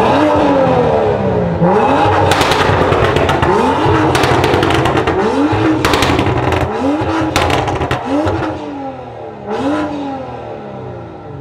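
BMW M2's turbocharged straight-six being revved while stationary: a series of quick rev blips, each rising and falling in pitch, with bursts of crackling exhaust pops as the revs drop, echoing in an underground car park.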